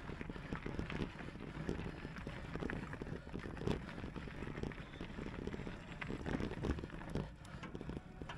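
Mountain bike riding over a rough track: irregular crunching and rattling of tyres and bike, with a low rumble underneath.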